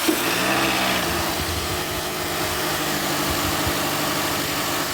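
2008 Nissan Altima's engine running just after a cold start: it flares up briefly as it catches in the first second, then settles to a steady idle.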